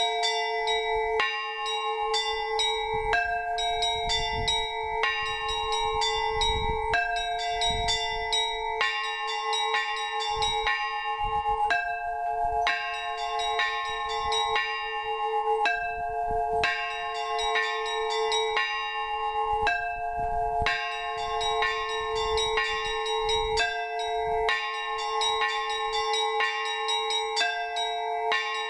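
Orthodox monastery bells ringing a trizvon: several bells struck in a quick repeating rhythmic pattern, with higher bells changing every second or so over a deeper tone that keeps sounding.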